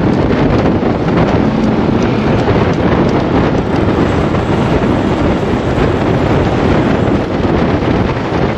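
Steady, loud rush of wind buffeting the microphone of a camera mounted on a road bike riding at speed.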